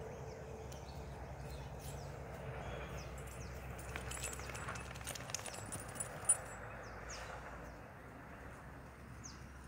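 Garden ambience: a steady low rumble on the microphone, a few sharp clicks about halfway through, the loudest around six seconds in, and short high bird chirps near the end.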